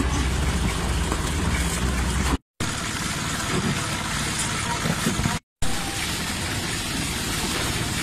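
A boat's motor running steadily, with wind and sea noise over it. The sound cuts to silence twice, briefly, at edits.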